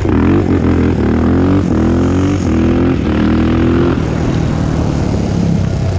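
Honda TRX400EX's single-cylinder four-stroke engine accelerating. Its pitch climbs and drops back twice as it shifts up through the gears, then it settles to a steadier run.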